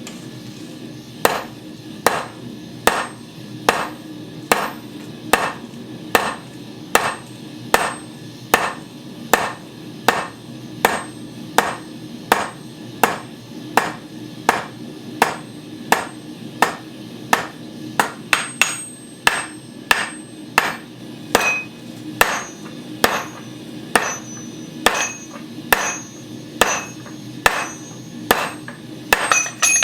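Hand hammer striking a hot rivet on tongs over the anvil to set its head, a steady run of single blows a little faster than one a second that starts about a second in. Some of the later blows leave a brief high metallic ring.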